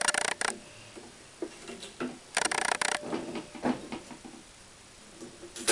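Tennis string being drawn through the racket frame and across the other strings, with two spells of scratchy, rasping friction, one at the start and one about halfway. A few light clicks and knocks come in between from handling the racket on the stringing machine.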